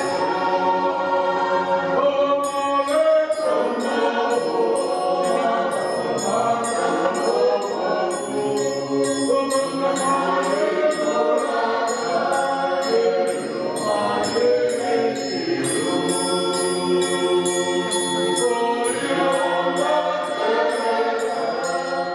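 Fijian church congregation singing a hymn together, many voices in harmony, with a light, even ticking keeping time above the singing.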